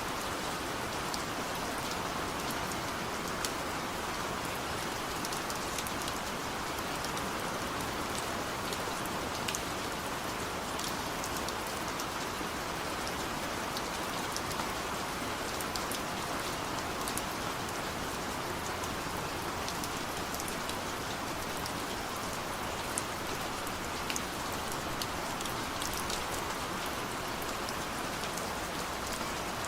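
Heavy rain falling steadily in a forest: a dense, even hiss of drops with many small distinct patters on leaves and surfaces.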